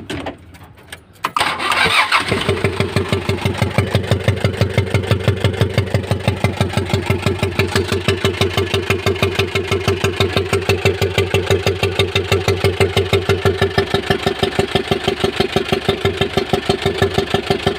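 Mitsubishi L300 engine starting about a second in and then idling with a loud, even, rapid pulsing clatter, several beats a second. It is the noise of a rocker arm whose roller has broken up, which the mechanic first took for a leaking intake valve blowing back out through the intake hose.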